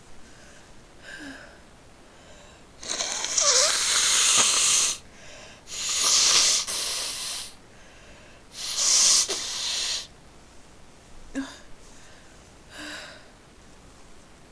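A person blowing their nose three times, each blow a second or two long.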